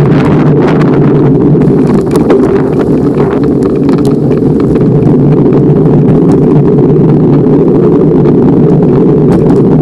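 Wind buffeting the microphone of a handlebar-mounted camera on a moving bicycle, a loud steady rumble, with scattered small knocks and rattles as the bike rolls over the path.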